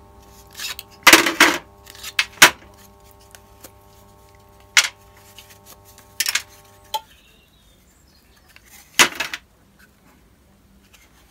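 Scattered sharp clicks and clinks of metal spring clamps and pewter castings knocking against MDF mould plates as the moulds are unclamped and opened. A faint steady hum cuts off with a click about seven seconds in.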